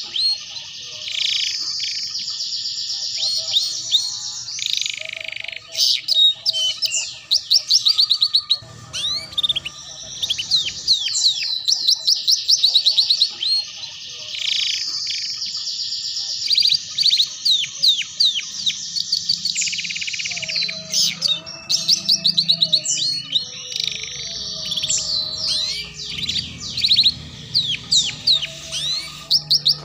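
Domestic canary singing a long, nearly unbroken song of rapid trills and chattering rolls, with quick falling notes between them: the 'ngeriwik' style of song used as a master song for young canaries to learn.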